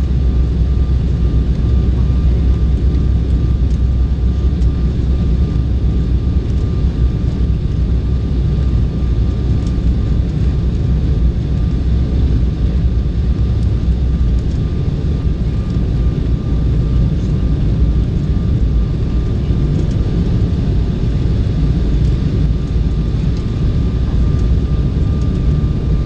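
Steady cabin noise inside an Embraer 190 airliner on its descent to land: the engines and rushing airflow make a deep, even rumble, with a faint steady whine above it. The deepest part of the rumble eases a little about halfway through.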